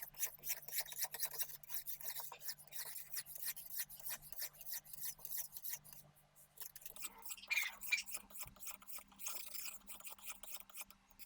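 Oiled hone of a Lansky Deluxe sharpening system rubbing back and forth along a kitchen knife's edge, a quick run of gritty scraping strokes while working to raise a burr. The strokes ease off briefly about six seconds in, then resume.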